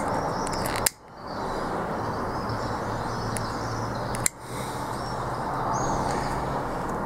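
Two sharp clicks, about a second in and again past the four-second mark, from a pocket lighter being struck to heat shrink tubing. Behind them a steady outdoor background hiss with light bird chirps.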